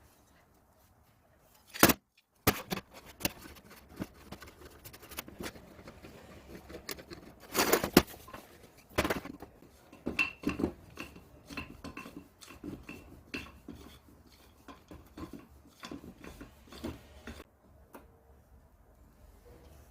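Metal pieces clinking and knocking as they are handled, with irregular sharp clicks and a few louder knocks, the loudest about eight seconds in.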